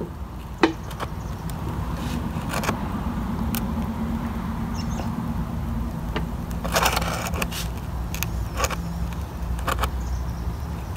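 A flathead screwdriver clicking and scraping against the rubber fuel-line grommet and plastic gas tank of a Honda FG100 tiller as it is pried at, in irregular clicks with a denser cluster about seven seconds in. A steady low hum runs underneath.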